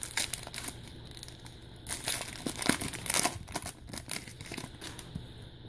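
Foil wrapper of a Bowman Platinum baseball card pack crinkling as it is torn open by hand: an uneven run of crackles, loudest in clusters about two to three seconds in.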